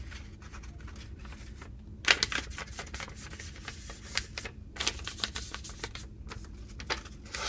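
A sheet of computer paper being folded in half and creased by hand: quick crackling rustles of the paper, which start about two seconds in.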